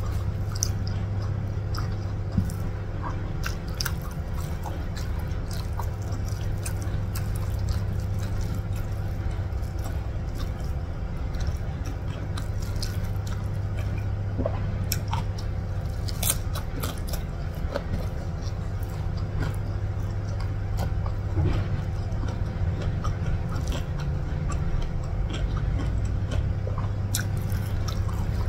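Close-miked eating with the bare hand: fingers mashing and scooping rice from a plate and mouthfuls being chewed, with many small wet clicks and smacks, over a steady low hum.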